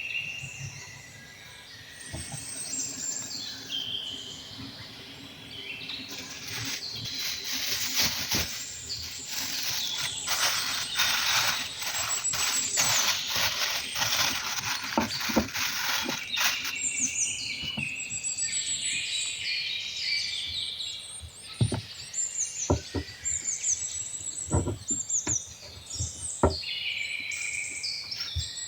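Small songbirds chirping and singing throughout. A stretch of crackly rustling noise fills the first half, and several sharp knocks sound in the second half.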